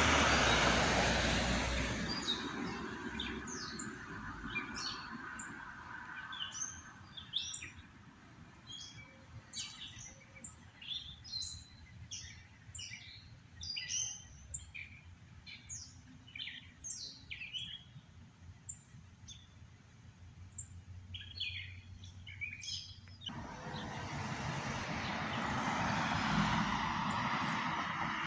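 Songbirds chirping and singing in many short, quick notes. A vehicle's rush fades away at the start, and about twenty-three seconds in a steady engine rush comes back suddenly and grows louder.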